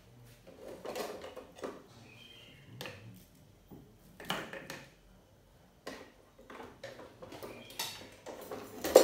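Scattered knocks and clatter of kitchen things being handled, a few seconds apart, with the loudest knock near the end.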